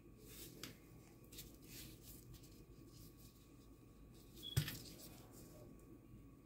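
Faint clicks and rustles of a hot sauce bottle being handled in gloved hands, with one sharper knock about four and a half seconds in.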